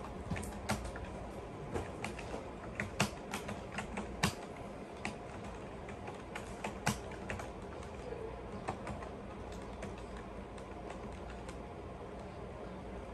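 Light, irregular clicks and taps of a utensil against a plate while eating, thickest in the first half and sparser after, over a steady low room hum.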